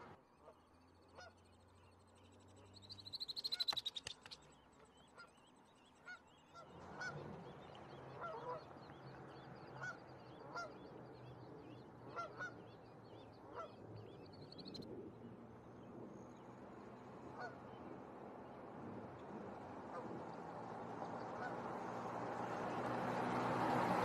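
Canada goose honking: a loud run of calls a few seconds in, then short single calls about once a second. A rushing noise swells toward the end.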